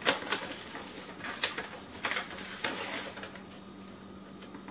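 Plastic stand-up pouch of stevia sweetener being handled and opened: crinkling with a few sharp clicks, busiest about two to three seconds in, then quieter.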